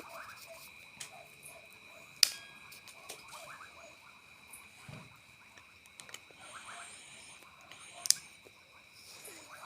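An old Zippo-style petrol lighter being handled: two sharp clicks, one about two seconds in and one about eight seconds in, with faint small handling sounds between. A steady high-pitched whine runs in the background.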